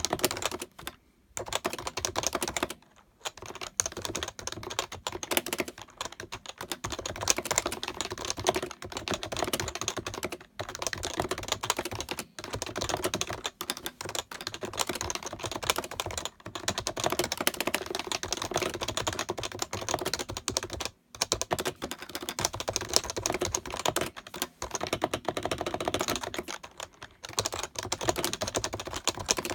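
Fast, continuous typing on a Happy Hacking Keyboard (HHKB): a dense stream of key clicks, broken by several brief pauses.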